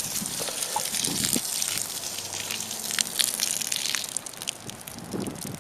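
Rainwater pouring out in a steady stream onto garden plants, with scattered splashes; it eases off a little near the end.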